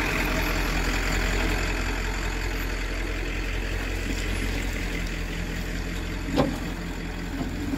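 Pickup truck engine running steadily at low speed as it pulls a tandem-axle utility trailer slowly past over rough, rocky ground, easing off a little. There is a single sharp clunk about six seconds in as the trailer rolls over the rocks.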